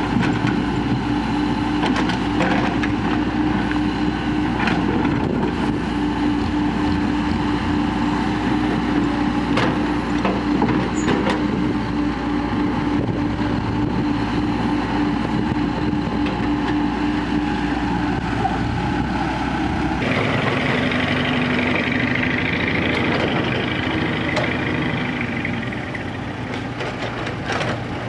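Heavy diesel engines of a tracked excavator and dump truck running steadily, with scattered knocks from digging and loading soil. The sound changes abruptly about twenty seconds in and takes on a brighter, scraping quality.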